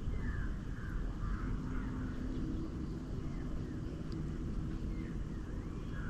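Outdoor riverside ambience: birds chirping now and then over a low steady rumble, with a faint distant engine hum coming in about a second in and fading out near the end.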